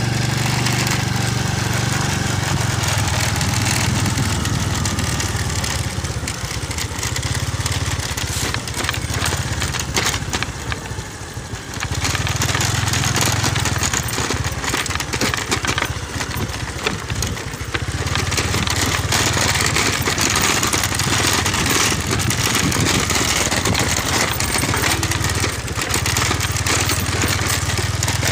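Small motorcycle engine running while riding along a bumpy dirt track. The engine drops off briefly about ten seconds in and again about sixteen seconds in, then picks up again.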